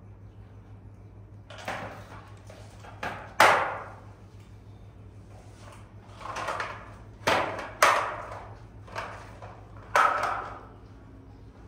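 A series of about eight sharp knocks and bangs at uneven intervals, each dying away quickly, like a door or drawer being knocked or shut.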